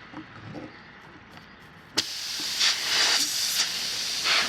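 A roofing nail pulled from a car tire with needle-nose pliers: faint handling, then about two seconds in a sharp click and a steady hiss of air escaping from the punctured tire.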